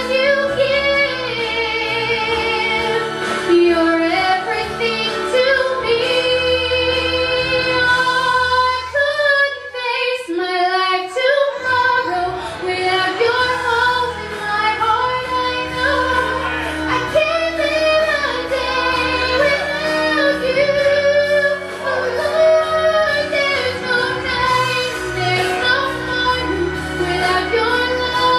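A woman singing a gospel song into a microphone, with two young children singing along into their own microphones, over music accompaniment that thins out briefly about ten seconds in.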